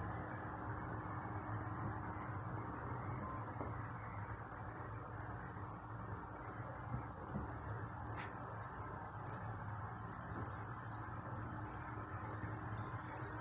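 A cat toy jingling in short, irregular, high-pitched bursts as a kitten bats and bites at it.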